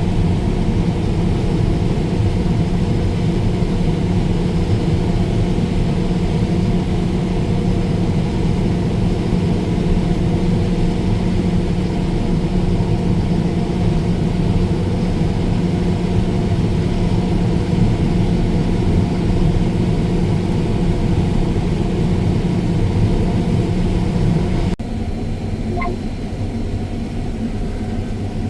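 Combine harvester running steadily at harvest, a continuous even mechanical drone. Near the end it drops suddenly to a quieter drone of a different pitch.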